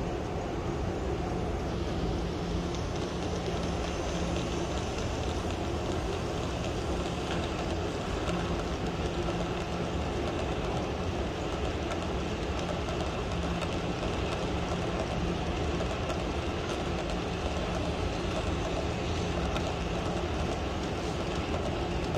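HO scale model train running on the layout track, a steady rolling noise of wheels on rail with a low hum that comes and goes.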